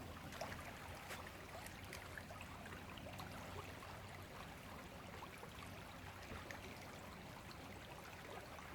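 Faint, steady rush of river water flowing, with a few small faint ticks scattered through it.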